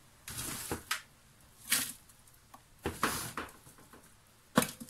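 Handfuls of chopped galangal and lemongrass dropped into an empty plastic food-processor bowl: a few short rustling clatters, the sharpest near the end.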